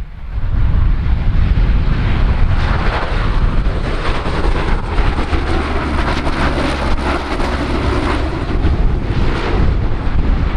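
Lockheed C-130H-30 Hercules on landing approach, its four Allison T56 turboprops and propellers droning loudly as it passes low. The drone swells in the first second and is strongest in the middle.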